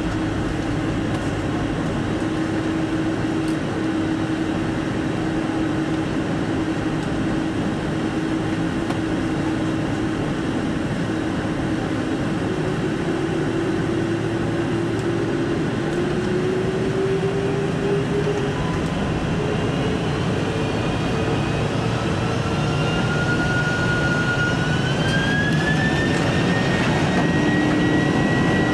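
Boeing 747-400 jet engines heard from inside the cabin while the airliner taxis: a steady rumble and hiss with a low engine tone. From about halfway through, several engine tones glide up in pitch and the sound grows slightly louder toward the end.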